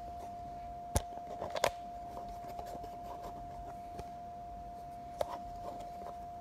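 A steady hum held at one pitch, with a few sharp clicks and knocks over it: one about a second in, a quick cluster just after, and another about five seconds in.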